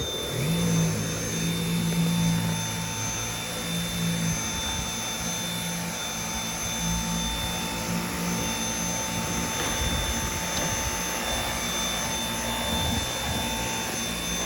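Dyson V8 cordless stick vacuum switched on right at the start, its motor rising in pitch as it spins up, then running steadily with a high whine over the rush of air. It is vacuuming baking soda out of a car's interior.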